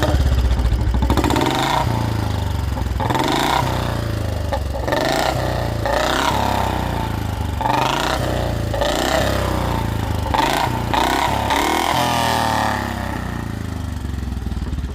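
Royal Enfield Bullet's single-cylinder engine revved repeatedly with the throttle: about nine rising and falling blips a second or so apart over its thumping idle. It settles back to idle near the end.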